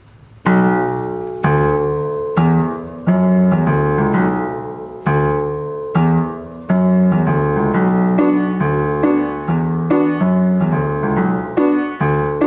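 Keyboard playing in a piano sound: a song intro of struck chords in a steady rhythm, each chord fading before the next, starting about half a second in.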